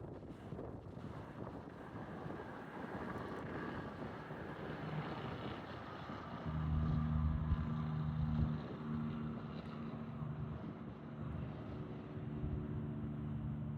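Wind rushing over the microphone, with a low, steady engine drone coming in about halfway through, loudest for a couple of seconds and then holding on more quietly.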